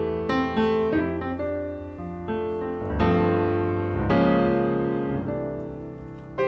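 Background piano music: struck notes and chords that each ring and fade, in a gentle unhurried tune.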